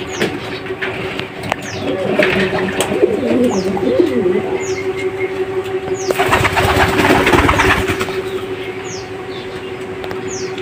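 Racing pigeons cooing in their loft, with a loud flurry of wing flapping between about six and eight seconds in. Short high chirps recur about once a second.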